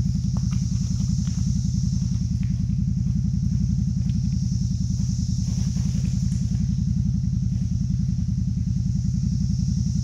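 CFMOTO ZFORCE 950 side-by-side's V-twin engine running at a steady speed, with no revving, and a steady high hiss over it.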